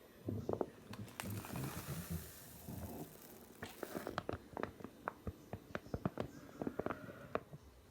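Home-built mechanical ventilator prototype running: a hiss lasting a couple of seconds with low knocking under it, then a quick, uneven string of mechanical clicks and knocks.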